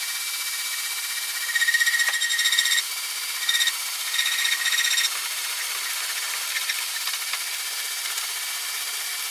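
A power tool running steadily, with a high squeal of something rubbing that comes and goes between about one and a half and five seconds in.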